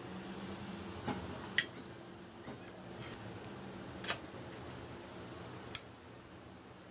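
Metal spoon and fork clinking against a clay pot and a ceramic plate while food is served and cut: four sharp clinks, the last loudest, over a faint steady hum.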